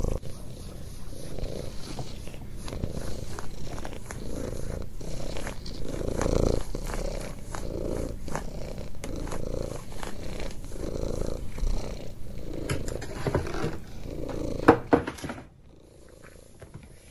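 Cornish Rex cat purring loudly, the purr swelling and fading about once a second with its breathing. It stops suddenly about two seconds before the end, just after a sharp click.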